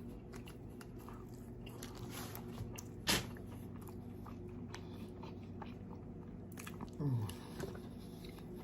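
Close-miked chewing and biting of fast food, with one sharp, loud bite about three seconds in and a short low falling sound from the eater around seven seconds.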